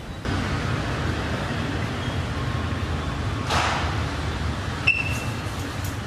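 Steady background hiss of room noise. About three and a half seconds in there is a brief whoosh, and near five seconds a click with a short high beep.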